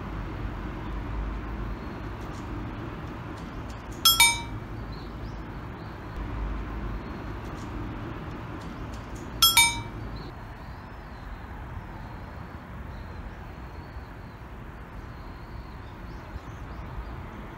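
Two short metallic clinks, each a quick double strike with a brief bright ring, about five seconds apart, over a steady low outdoor rumble.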